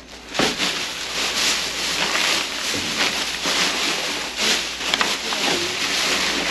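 Thin plastic garbage bags rustling and crinkling as gloved hands dig through and pull them open, with a few sharp crackles.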